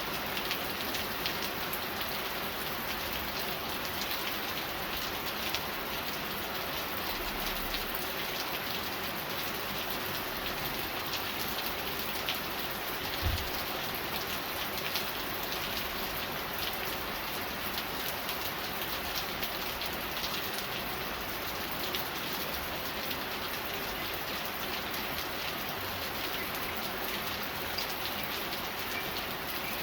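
Steady rain falling and pattering on surfaces, with many small drop ticks and one brief low thump about 13 seconds in.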